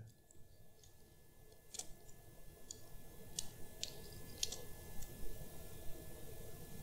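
Faint scattered clicks and handling noises from a jumper wire being picked up and worked with at the machine's connector, over a low steady hum and a faint steady high tone.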